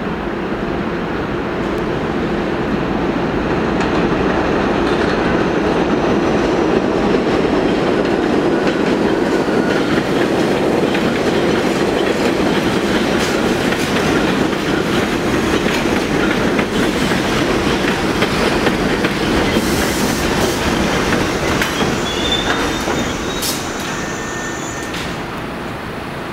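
Bombardier R62A subway train pulling into the station, its wheels clattering over the rails and growing louder over the first several seconds. Near the end come sharp clicks and brief high-pitched squeals as it slows.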